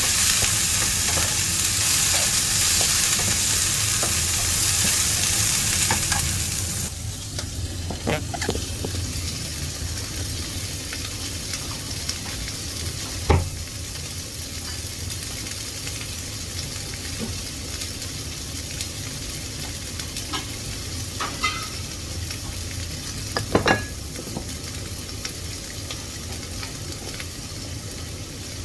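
Food frying in hot oil in a pan, sizzling loudly, then suddenly much quieter about seven seconds in, with a few knocks of a cooking utensil against the pan.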